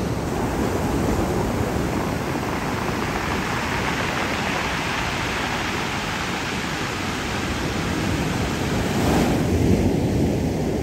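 Ocean surf breaking and washing up over a cobblestone beach: a steady rush of water, with one wave coming in louder about nine seconds in.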